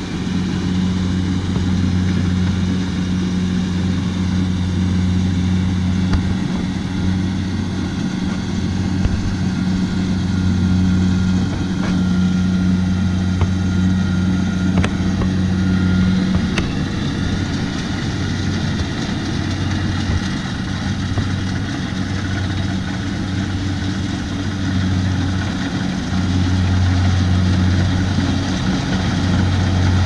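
Kubota DC70 rice combine harvester running steadily as it harvests, a low diesel drone that grows a little louder near the end as the machine comes closer.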